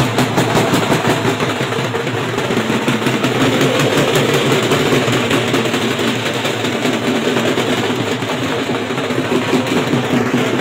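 Dhol drums beating a fast, steady rhythm.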